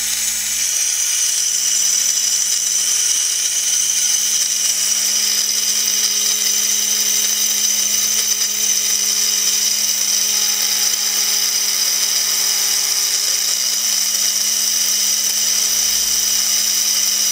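Small electric drill running steadily with its bit grinding into a water-wetted ruby ball: a steady high whine over a low hum. The cutting is under way, the water turning milky with ground ruby.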